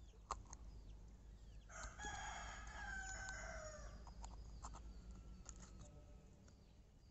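A rooster crowing once, a drawn-out call of about two and a half seconds starting near two seconds in and dropping in pitch at the end. A few faint clicks sound around it.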